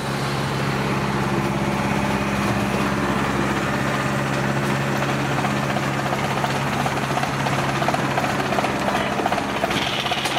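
Kubota DC-70G combine harvester's diesel engine running steadily as the machine works through deep mud, a low, even drone. A faster rhythmic pulsing and a hiss join near the end.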